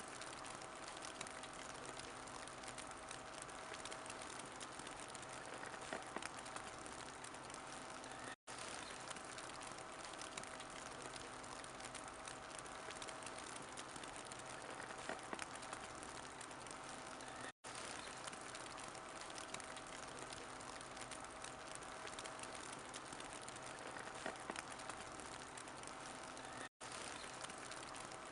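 Wood fire in a fireplace crackling steadily, with small pops scattered through it. The sound cuts out for an instant three times, evenly about nine seconds apart.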